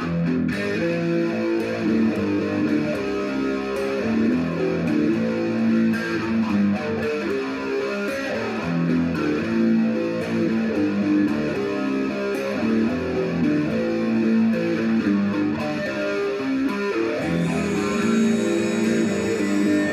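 A solo guitar playing a slow chord progression, each chord ringing for a second or two before the next: the instrumental intro of a song.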